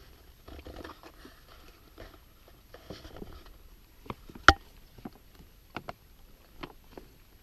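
Footsteps and small crackles on dry leaves and twigs on a forest floor, with one sharp snap about four and a half seconds in and a few lighter clicks after it.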